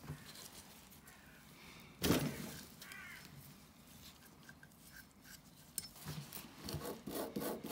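Metal hand tools and a cast brake caliper being handled on a workbench: a sharp knock about two seconds in, a short squeak, then scattered ticks and quicker clicking and scraping that build near the end.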